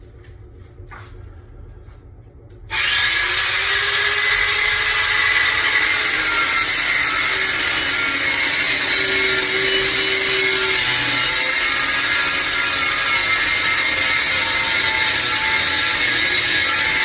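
Power saw cutting through a wooden stud: it starts abruptly about three seconds in, runs loud and steady for about fourteen seconds, then cuts off.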